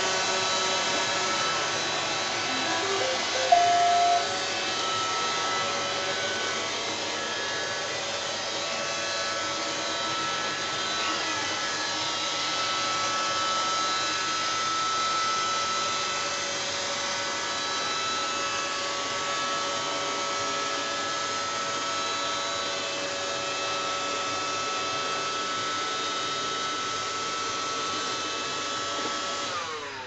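Several iRobot Roomba robot vacuums running together, a steady whine of their vacuum and brush motors over a hiss, with a short beep about three and a half seconds in. Just before the end the motors wind down in a falling whine as the robots settle on their docks.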